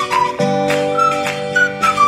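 Background music: a high, gliding lead melody over held chords and a steady beat.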